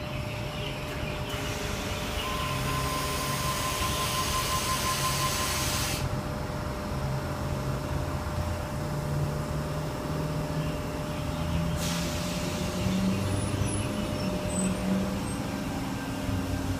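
Sydney Trains Tangara electric train standing at the platform with the low hum of its onboard equipment. About a second in, a hiss of air lasts some five seconds as its doors close, with a steady tone sounding partway through it. A fainter hiss starts again near the end.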